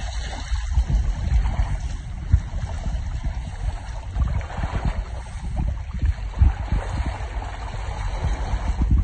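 Water rushing and splashing along the hull of a folding kayak under sail, with gusty wind rumbling on the microphone.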